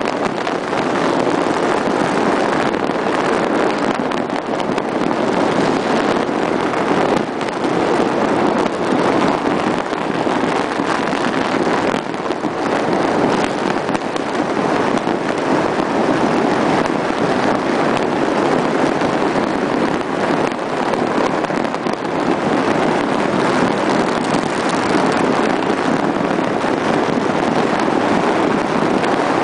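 Massed firecrackers and fireworks going off all over a city, merging into one steady, dense crackling din in which no single bang stands out.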